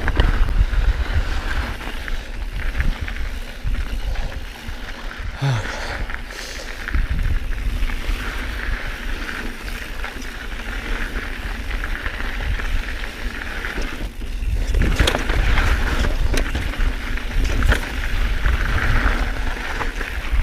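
Mountain bike running downhill on a loose trail: wind buffeting the microphone, tyre noise on the dirt and gravel, and the bike rattling over bumps, with a run of sharper clatters about fifteen seconds in.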